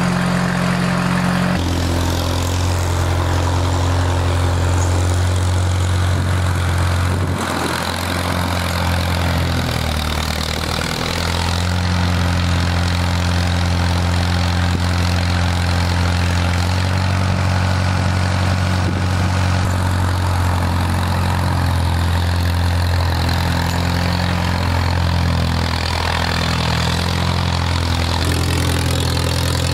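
Farmall M tractor engine running steadily, its low note shifting in pitch a few times, with a brief dip between about 7 and 11 seconds in.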